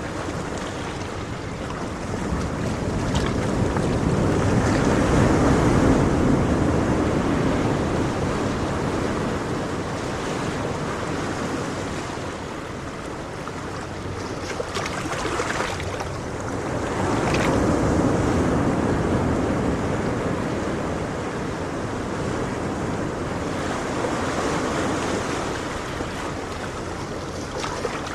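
Ocean waves breaking and washing on a shore in slow swells, with two larger surges, the first around five seconds in and the second near eighteen seconds.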